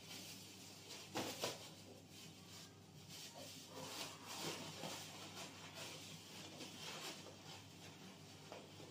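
Thin plastic bag crinkling faintly as it is twisted and knotted shut by hand, with a slightly louder crackle about a second in.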